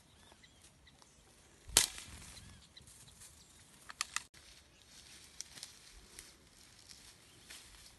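Rustling and footsteps through tall dry grass, with a few faint bird chirps. A single sharp knock about two seconds in is the loudest sound, and there are a few smaller clicks around the middle.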